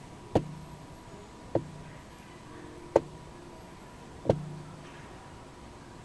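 Four sharp knocks about a second and a half apart, each followed by a brief low hum, over a faint steady hiss.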